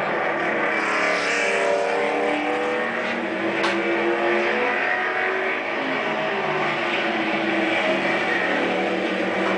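Strictly stock race cars running hard on a short oval, several engines at high revs with their pitch rising and falling, played back through a television's speaker.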